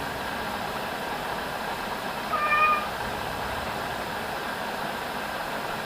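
A house cat gives one short meow about two and a half seconds in, over a steady background hiss.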